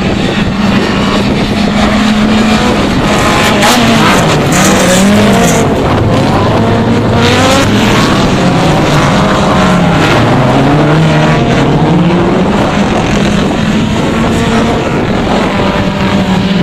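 Autocross race car engines running hard, their pitch repeatedly rising and dropping with gear changes and lifts on the throttle, with more than one engine heard at once.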